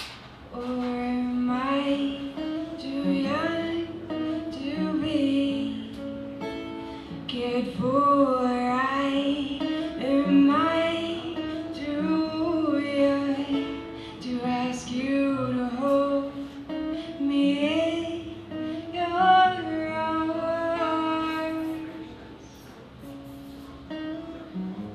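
A woman singing live over her own strummed acoustic guitar. The voice stops a few seconds before the end, leaving the guitar playing alone.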